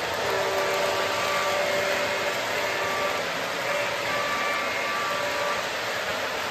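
Electric model trains running on a layout: a steady whirring of motors and wheels on the track. Faint steady tones come and go twice.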